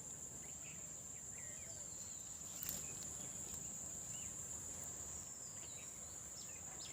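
Steady high-pitched drone of insects with scattered short bird chirps. A single brief click sounds about two and a half seconds in.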